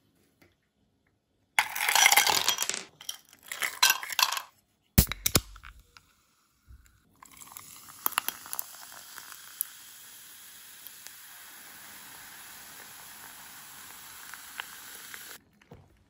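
Ice cubes clattering into a glass tumbler, then a sharp click. Then Chilsung Cider, a carbonated lemon-lime soda, is poured over the ice: a steady fizzing hiss for about eight seconds that stops abruptly.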